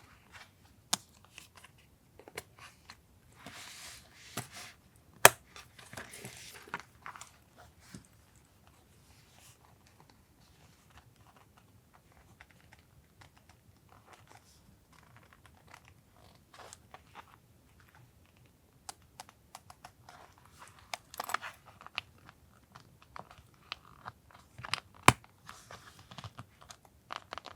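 Paper being handled for journal collage: rustling and crinkling of paper and stickers, with scattered sharp taps and clicks of tools and materials set down on the desk.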